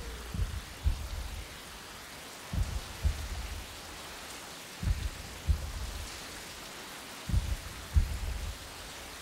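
Steady heavy rain, with a slow, deep heartbeat over it: four double thumps, each pair about two seconds after the last.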